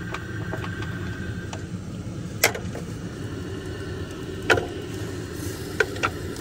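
A steady low rumble under a few separate, sharp clicks of mussel shells being handled.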